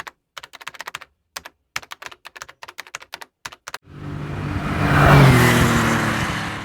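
Typing on a computer keyboard: quick runs of key clicks with short pauses, for about four seconds. Then a loud whoosh swells up, peaks and fades away.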